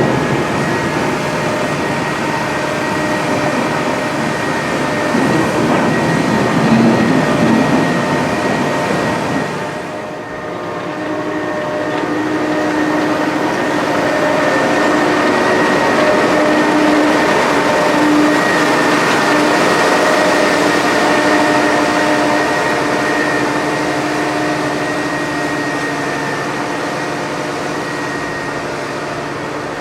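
Heavy potato-harvesting machinery, a self-propelled harvester with its engine and conveyors, running steadily with a rumble and a couple of steady whining tones. The level dips briefly about ten seconds in, then comes back steady.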